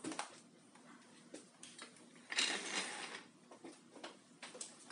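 Handling noises from someone rummaging under a workbench: scattered light clicks and knocks, with one longer rustle or scrape about two and a half seconds in.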